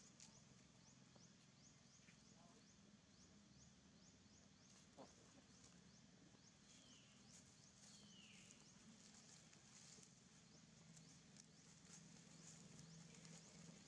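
Near silence: faint outdoor ambience with a quick run of faint high ticks early on, scattered ticks later, and two faint falling squeaks about halfway through.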